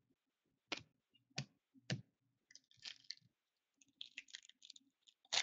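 Trading cards and a foil card pack being handled: three sharp clicks in the first two seconds as cards are set down, then soft crinkling of the foil wrapper, with a louder crinkle at the very end.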